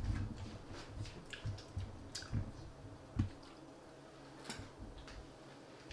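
Eating sounds at a table: scattered wet, squishy noises and light clicks of chopsticks and a spoon against bowls and takeout containers. A single soft knock comes a little over three seconds in.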